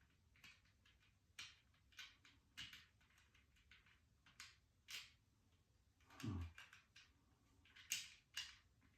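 Faint, irregular clicks and taps of small plastic Lego pieces being handled and pressed into place, with a duller knock about six seconds in.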